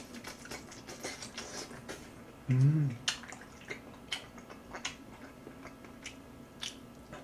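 Close-up chewing and wet mouth clicks of a person eating grilled sausage and mushrooms, with a brief hum-like voice sound about two and a half seconds in, the loudest moment.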